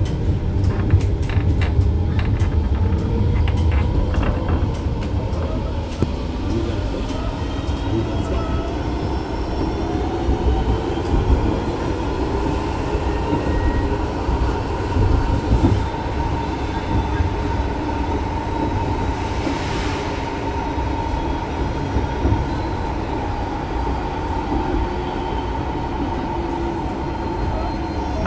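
Type R tram heard from inside the car while running along the track: steady rumbling wheel-and-rail noise under a steady whine. Rapid clicking sounds over roughly the first six seconds.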